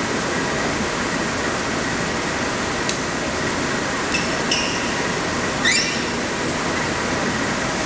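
Steady background noise of the sports hall, with one sharp racket-on-shuttlecock click about three seconds in and shoes squeaking on the court floor twice about four seconds in and once more near six seconds.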